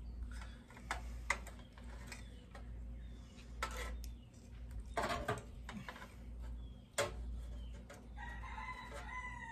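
Scattered sharp clicks of spade connectors being pulled off and pushed onto relay terminals with needle-nose pliers in an electric kiln's control panel, the loudest about five and seven seconds in. Near the end a chicken calls.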